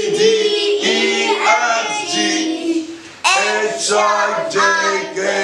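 A man singing a children's phonics song for the letter I in held notes, with a short break about three seconds in.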